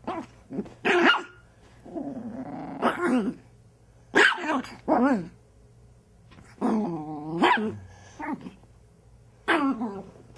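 Chihuahua puppy barking and growling in rough play: a string of short, high yaps and growls about once a second, with a longer rough growl about two seconds in.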